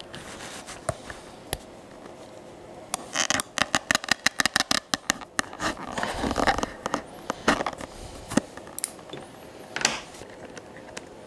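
A wet leather thong being worked through slits in a leather holster with a metal hemostat clamp. There is a quick run of clicks and scrapes about three seconds in, a longer rub about six seconds in, and a few single clicks near the end.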